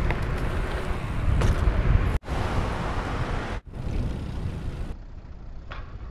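Wind buffeting a GoPro's microphone, with the rumble of a bicycle riding along a paved path. The noise is cut off sharply twice, a little past two and three and a half seconds in, and turns quieter and duller near the end.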